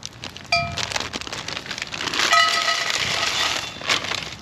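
Peppers and onions sizzling in hot oil in a cast iron skillet over a campfire. A steady horn-like tone sounds briefly about half a second in and again for over a second in the middle, where the sizzling is loudest.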